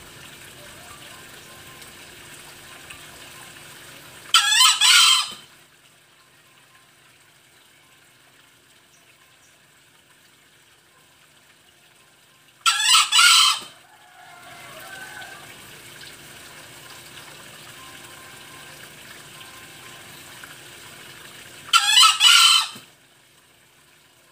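Green junglefowl cock crowing three times, each a short, hoarse, broken crow about a second long, roughly eight to nine seconds apart.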